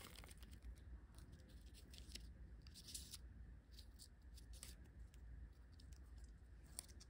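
Faint rustling and scratching of a clear plastic wrapper and tiny paper sheets handled between the fingers, with a few light crinkles scattered through.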